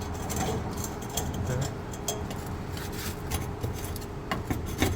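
Light metallic clinks and clicks of a socket wrench working an exhaust bolt, with a few sharper clicks near the end, over a steady background hum.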